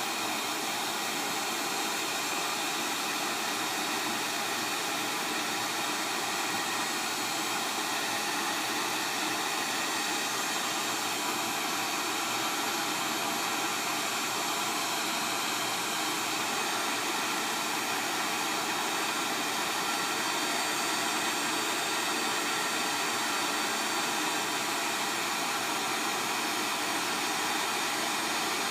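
Hot-air rework heat gun on high, blowing a steady rush of air onto a phone board to melt the solder on a USB charger port.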